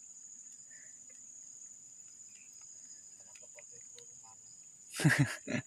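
Crickets trilling steadily at night, a continuous high-pitched tone. Near the end a person's voice cuts in briefly and loudly.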